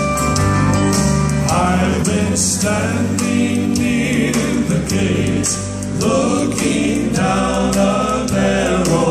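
Male gospel quartet singing in four-part harmony over instrumental backing music. The voices come in about a second and a half in.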